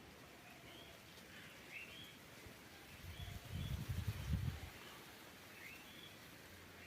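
Birds chirping, short rising calls repeated every second or so, with a low rumble for about a second and a half midway.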